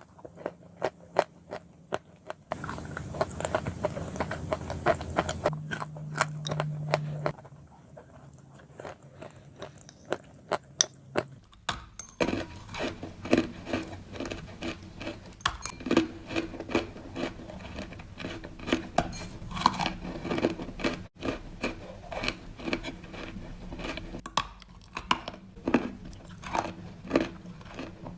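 Close-up biting and chewing of crunchy ball-shaped snacks: a rapid run of sharp crunches, with the background changing abruptly several times between clips.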